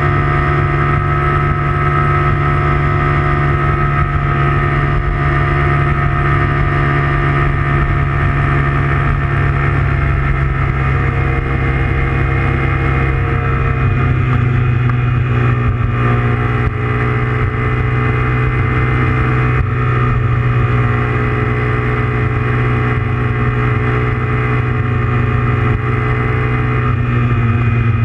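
Honda Grom's small single-cylinder engine running steadily at cruising speed, heard from the bike itself, its note holding fairly even with only slight shifts in pitch.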